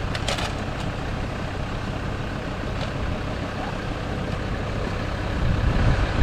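A vehicle engine idling with a steady low rumble, with a few light clicks in the first second.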